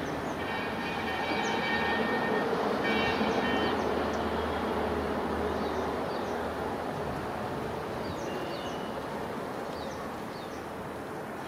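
WDP4D diesel locomotive approaching from a distance under load up a grade, with a steady engine rumble. Its horn sounds twice early on, a long blast of about two seconds and then a shorter one. Birds chirp now and then.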